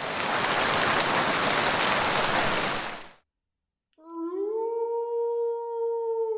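A loud, even hiss that cuts off after about three seconds. After a brief silence, a wolf begins one long howl about four seconds in, rising in pitch and then holding steady.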